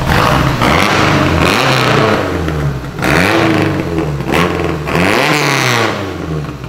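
Freshly rebuilt Lancia Fulvia Zagato 1600 narrow-angle V4 engine pulling the car away, its pitch rising and falling about four times as the throttle is opened and closed, then fading near the end as the car moves off.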